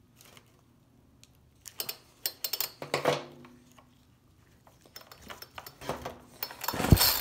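Chainsaw recoil starter and new pull cord being handled: scattered clicks and rattles of the plastic housing and handle, then near the end a louder run of rasping and knocking as the cord is drawn out and rewinds.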